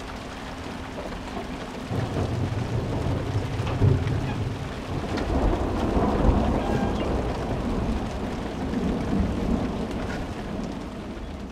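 Thunder rolling: a deep rumble starts about two seconds in, swells to its loudest a few seconds later, then slowly fades, over the steady hiss of rain.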